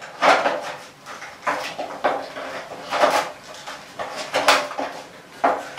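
Hand tin snips cutting through sheet metal along a marked line, a string of short sharp cuts about one every half second to a second, as a repair panel for a wheel arch is cut out.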